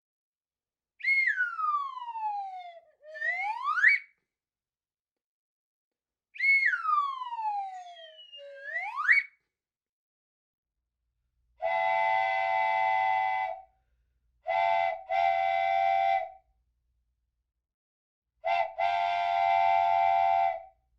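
A whistle glides down in pitch and back up, twice, with a short gap between. After a pause, a steady multi-chime whistle sounds a chord in several blasts: one long, two short, then a short and a long one near the end.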